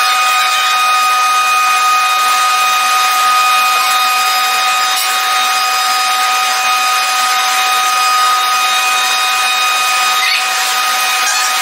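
Metalworking machine cutting metal, running steadily with a high whine over a rough hiss.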